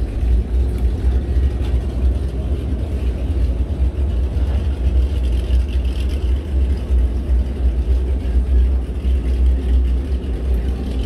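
Motorized TV lift raising a flat-screen television out of a sideboard cabinet, a faint motor whir under a steady, loud low rumble.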